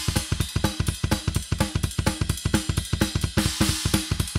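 Acoustic rock drum kit playing a fast, driving pattern of rapid, even bass drum and drum strokes with cymbals throughout.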